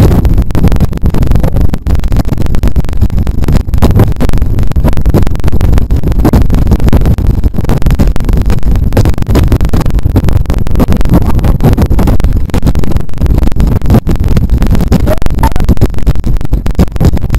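Wind buffeting the microphone of a camera mounted on a road bicycle ridden at about 23 to 26 mph: a loud, constant low rumble with irregular flutter.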